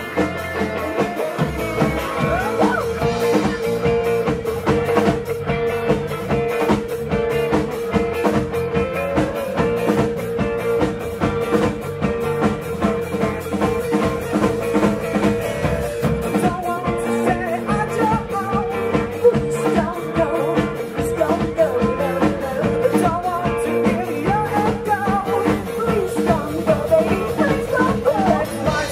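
Live pop-rock band playing: a drum kit keeps a fast, even beat under guitar, with a long held note sustained over it from about two seconds in.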